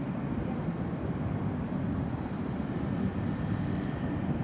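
Distant jet engine noise from a Boeing 737-800's CFM56-7B turbofans high overhead: a steady, even low rumble.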